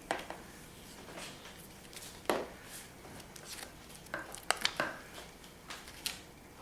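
Soft rustling and small clicks of handling as a hearing-test earphone is fitted to a sleeping child's ear. There is one sharp tap a little over two seconds in and two more close together about four and a half seconds in.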